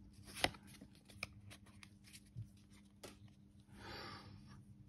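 Pokémon trading cards handled in the hands and slid against each other, giving a few soft clicks and a short papery rustle about four seconds in.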